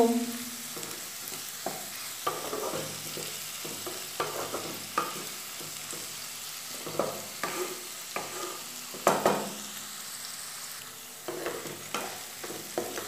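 Diced potato and papaya with tomato and green chillies frying in oil in a non-stick kadai: a steady low sizzle under irregular scrapes and knocks of a spatula stirring the pieces.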